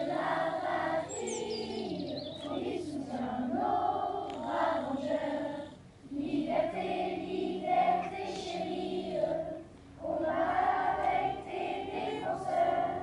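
A chorus of voices, children's among them, singing a song together in long phrases, with short breaks for breath about six and ten seconds in.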